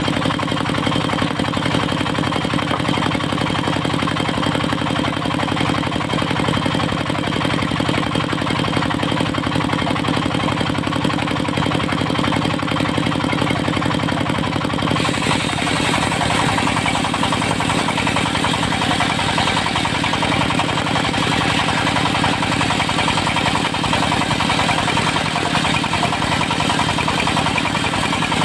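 Engine driving a portable circular sawmill, running steadily. About halfway through, a harsher, higher noise joins in over the engine and carries on.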